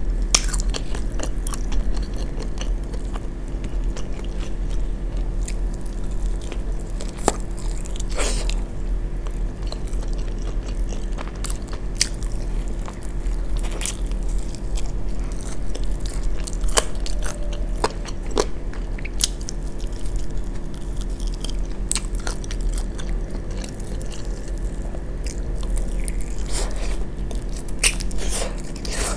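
Close-miked eating: biting and chewing barbecue-sauced fried chicken wings, with scattered sharp crunches and clicks of teeth on skin and bone. A steady low hum sits underneath.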